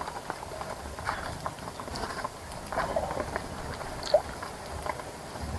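Birds bathing in a bird bath: irregular small splashes and flutters in the water, with brief chirps, one sharper call about four seconds in.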